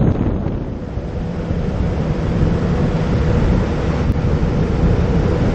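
Wind buffeting the microphone as a Riamar 515 speedboat runs at speed, its outboard motor droning steadily under the rush of water from the hull and wake.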